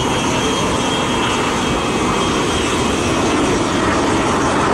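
Goodyear FG-1 Corsair's Pratt & Whitney R-2800 radial engine running in a flypast overhead, a steady heavy drone.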